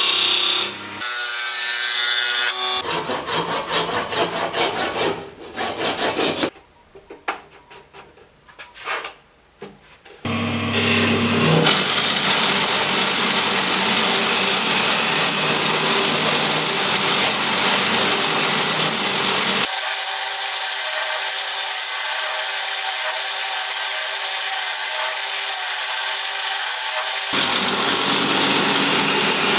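Wood lathe running while a turning gouge cuts a spinning wooden blank: a scraping, shaving hiss over the lathe's hum, including hollowing into the end of the blank. The sound changes abruptly several times, with a quieter stretch of scattered ticks about a quarter of the way in.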